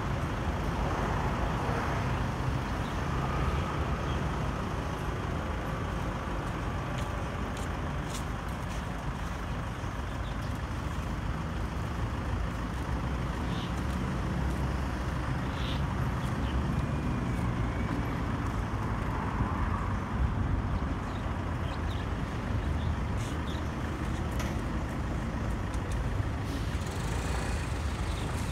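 Steady low jet rumble of an Airbus A320-214's CFM56 engines climbing out at a distance, blended with a roadway traffic hum.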